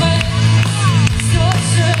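A live band playing amplified music through an open-air stage PA, heard from the audience: strong held bass notes under sharp drum hits.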